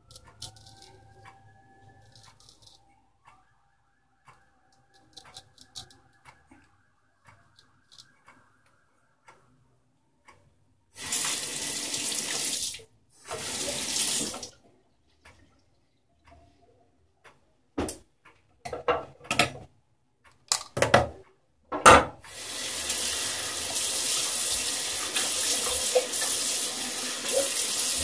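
Bathroom sink tap running in two short spells about a third of the way in, then a few sharp knocks, then running steadily over the last third. The quiet first part holds faint ticking from a wall clock.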